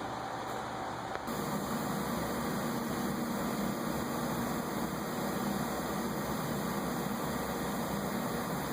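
Steady background hum and hiss from running machinery, a little louder from about a second in.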